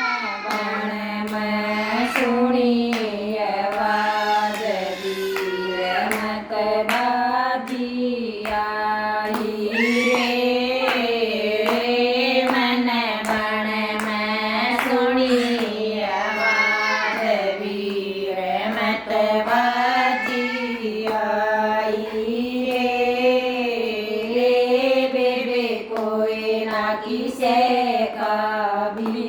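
A woman singing a Haryanvi folk song in one continuous melodic line, with sharp hand claps scattered through it.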